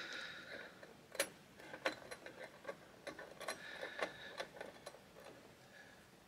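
Faint, irregular small metal clicks and ticks of a Torx key turning in the screws of an LGA 1700 CPU socket's metal retention bracket as they are loosened.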